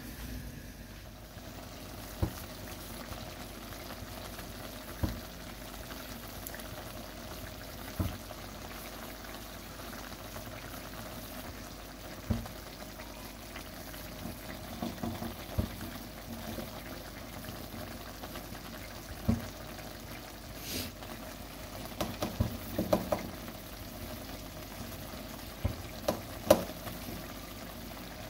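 A pot of food boiling and bubbling steadily, with a short knock or clink every few seconds.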